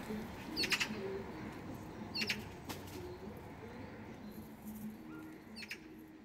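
Birds calling: a handful of short, high chirps over a lower, steady background, the whole fading toward the end.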